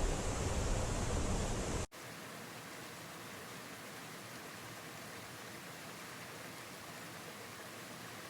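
Waterfall rushing, loud with a deep rumble, then an abrupt cut about two seconds in to a quieter, even hiss of falling water with little low end.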